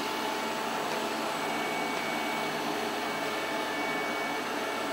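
Aonus S8 robot vacuum running, its suction motor giving a steady, even rushing noise with a faint thin whine.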